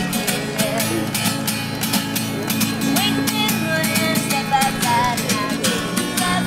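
Street busker strumming an acoustic guitar in a steady rhythm, with a woman's singing voice over it.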